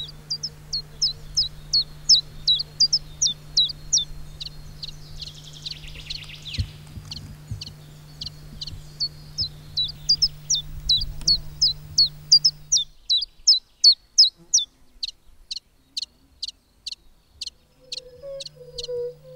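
A songbird singing a long unbroken run of short, high, down-slurred notes, about three a second. A low steady hum lies under it and cuts off about two-thirds of the way through.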